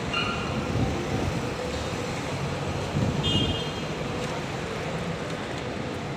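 Road traffic hum at an airport kerbside, steady throughout, with short high-pitched tones just after the start and again about three seconds in.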